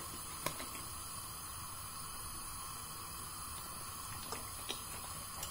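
Faint, steady hiss with a few light clicks, one about half a second in and a few near the end, as oil is poured from a bottle into a stainless steel pot of water on an induction hob.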